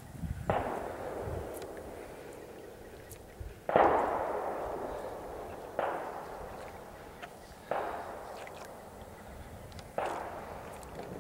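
A series of five sharp bangs about two seconds apart, each trailing off in a long echo; the second is the loudest.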